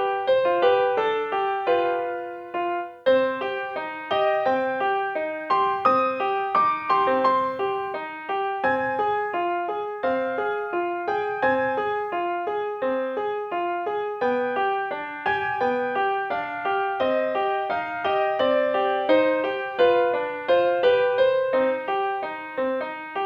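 Piano music: a gentle melody of single notes, each struck and left to fade, following one another at an even pace.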